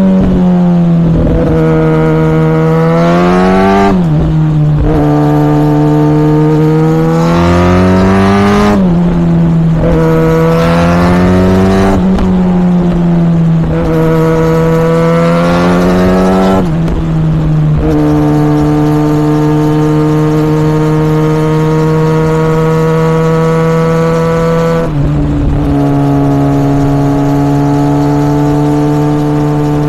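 Kawasaki ZX6R's 636 cc inline-four through a Yoshimura R77 exhaust, pulling hard and climbing in revs, with a sharp drop in pitch at each upshift about every four seconds. For the second half it holds steady revs at cruise, with one small step down in pitch near the end.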